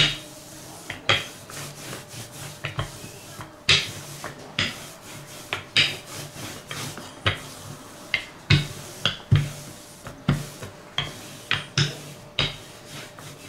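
Wooden rolling pin rolling out a sheet of dough on a plastic-covered table, with a soft rub as it rolls and an irregular knock about once or twice a second as it is pushed and pulled back.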